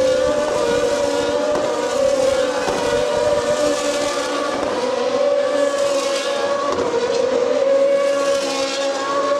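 GP2 (Formula 2) single-seater race cars' V8 engines running at high revs as the cars go past one after another: a steady high engine note that swells as cars pass, about four seconds in and again near the end.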